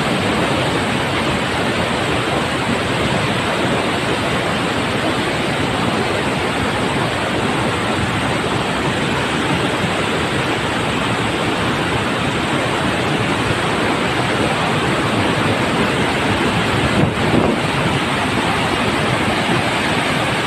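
Floodwater rushing over Wawa Dam in a loud, steady torrent, the river swollen by typhoon rain.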